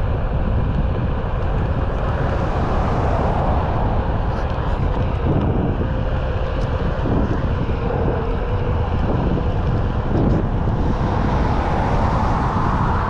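Steady wind rushing over the camera microphone, mixed with the rumble of longboard wheels rolling on asphalt.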